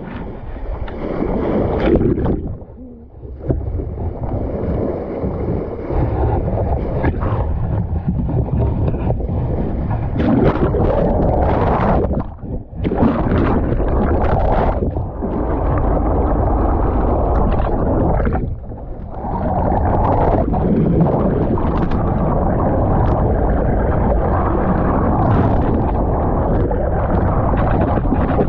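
Water rushing and bubbling past a CSY 37B sailboat's hull as it moves under sail, heard through a camera held underwater: a loud, muffled, steady rush that drops away briefly about three, twelve and eighteen seconds in.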